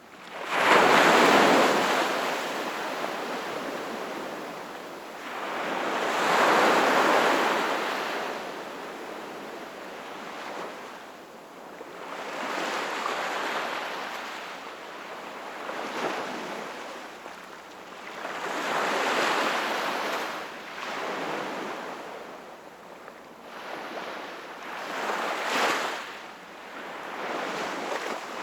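Sea waves breaking and washing onto the shore, one surge swelling and fading roughly every six seconds; the loudest comes about a second in.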